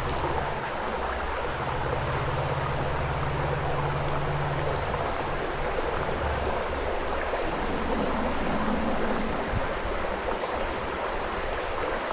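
Creek water running steadily, a continuous rushing with no breaks.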